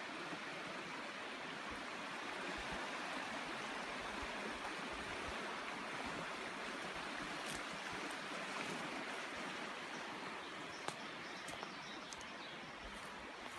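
Mountain creek running steadily, an even rush of flowing water.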